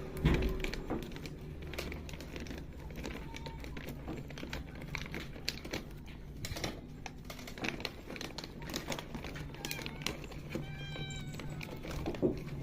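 A kitten meowing, a wavering call about ten seconds in, among scattered small clicks and taps, while the kittens wait to be fed.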